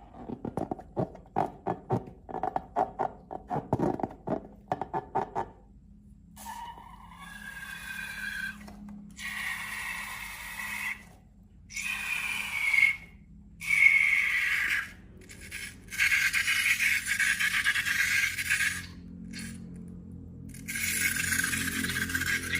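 Slime squished in quick rhythmic strokes, about two or three a second, for about five seconds. Then a rubber balloon squeals in a series of drawn-out, wavering bursts with short gaps between them.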